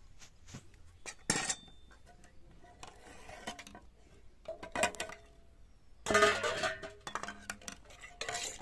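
Stainless steel cookware (wok, bowls and a ladle) clinking and clattering as it is moved and set down, in irregular knocks with a busier run of clatter about six seconds in.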